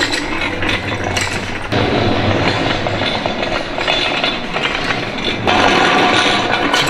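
Hand pallet jack pulled across a concrete shop floor with an engine on its pallet, its wheels rattling and clattering steadily, louder after about two seconds and again near the end.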